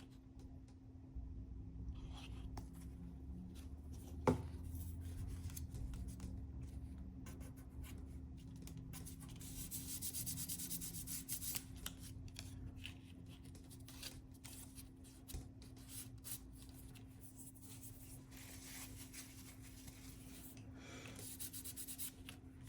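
Hands rubbing and handling paper and cardstock, pressing glued craft pieces down, with a brighter stretch of rubbing near the middle. There is one sharp click about four seconds in, over a steady low hum.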